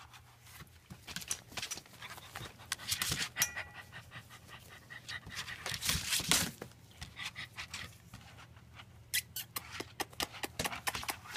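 German shepherd puppies panting and snuffling right at the microphone, with many small scratchy clicks and scuffs, and louder flurries about three and six seconds in.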